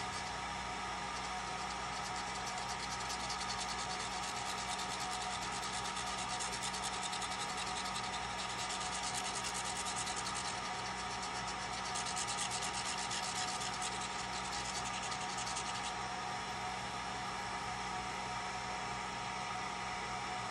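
Atomstack A10 Pro laser engraver running: a steady hum with a few constant tones, overlaid by a fine, rapid ticking as the laser head scans across the tile. The ticking comes and goes, strongest in two stretches in the middle, and then only the steady hum carries on.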